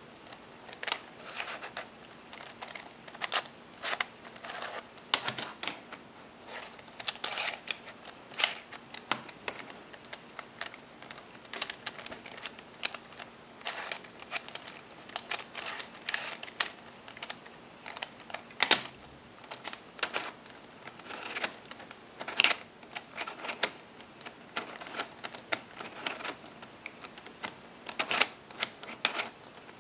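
Plastic clicking and clacking of a Triamese twisty puzzle's layers being turned by hand, in quick irregular runs with a few louder clacks.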